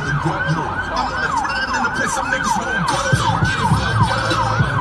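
Emergency vehicle siren in a fast yelp, its pitch rising and falling about three times a second.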